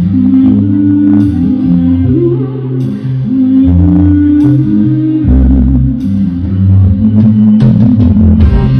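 Instrumental band music: guitar over held bass notes, with a drum kit adding occasional cymbal strokes.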